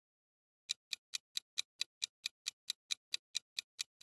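Countdown-timer ticking sound effect: evenly spaced sharp ticks, about four and a half a second, starting under a second in.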